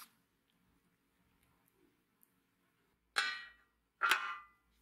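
A rusty steel straight razor clinks against an enamel tray twice, a little under a second apart, each strike ringing briefly.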